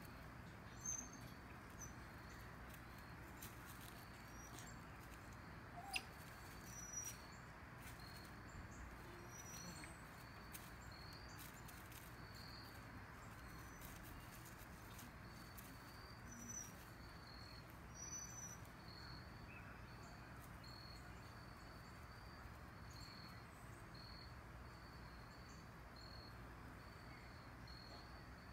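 Faint outdoor ambience: short, high chirps repeat about once a second, with a few higher chirps now and then. A single sharp click comes about six seconds in.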